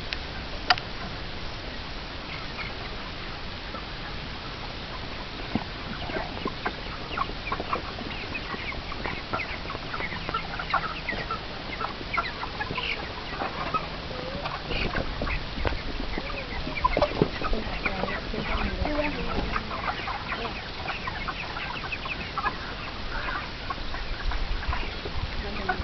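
A flock of chickens clucking and calling, many short overlapping calls over a steady background noise, busier after the first few seconds. A single sharp click sounds shortly after the start.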